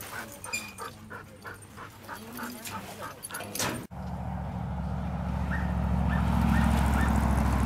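Quick footsteps on dry dirt, about three to four a second, with a young Australian Shepherd's brief whines. About four seconds in, these cut off and a steady low rumble takes over, growing louder, with a few faint short chirps.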